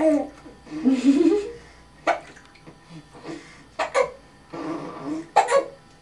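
Young baby hiccupping, several short sharp hiccups one to two seconds apart, with a brief voice sound about a second in.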